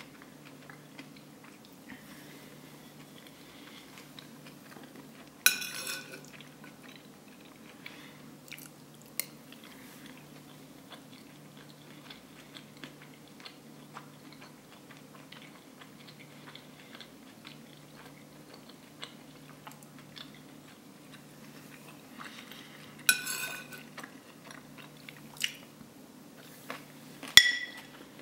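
Close-miked chewing of curried rice and vegetables, broken by several sharp clinks and scrapes of cutlery on the plate, the loudest near the end. A steady low hum runs underneath.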